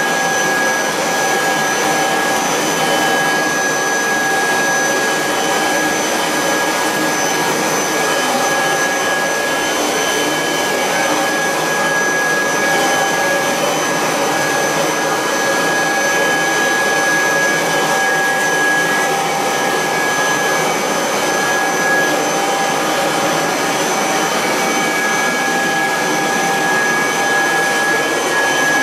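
A 1986 Kirby Heritage 2 vacuum cleaner, set up as a canister with a hose, running steadily: a loud rush of air with a steady motor whine over it.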